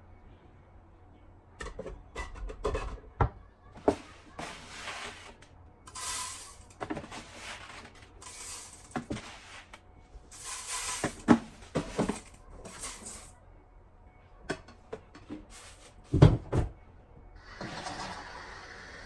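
Kitchen clean-up sounds: a string of knocks and clatters of containers, utensils and cupboards being handled, with short rushes of hissing noise between them. A loud thump comes about sixteen seconds in, and a steady hiss starts near the end.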